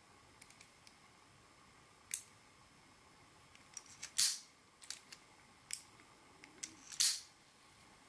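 Sharp clicks and snaps of a spring-loaded automatic wire stripper's metal jaws and mechanism as its handles are squeezed and released. The two loudest snaps come about four and seven seconds in, with lighter ticks between.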